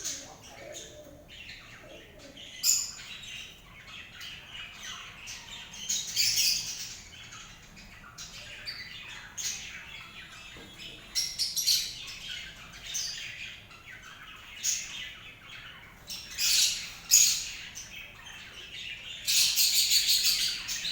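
Birds chirping in short, high-pitched bursts on and off throughout, louder in spells near the middle and end.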